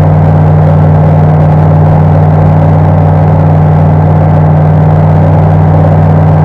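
Flight Design CTSW's Rotax 912 four-cylinder engine and propeller running steadily in flight, a loud, unchanging drone with a deep hum, heard inside the cockpit.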